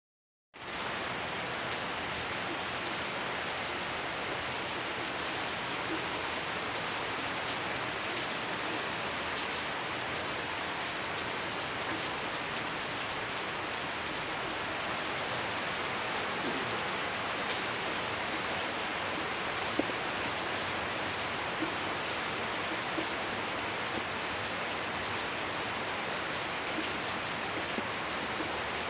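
Heavy rain falling steadily on wet paving, puddles and broad banana leaves, an even hiss with a few louder single drops.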